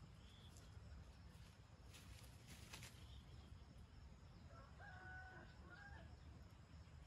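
A rooster crows once, faint, about four and a half seconds in, the call lasting around a second and a half. A short hissing rustle comes a couple of seconds earlier.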